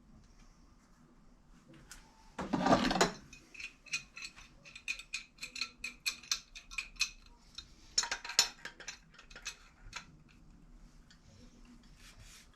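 Metal tools and throttle-body parts handled on a workbench: a clatter about two and a half seconds in, then a run of light, ringing metallic clicks at about three a second, another clatter around eight seconds, and a few more clicks.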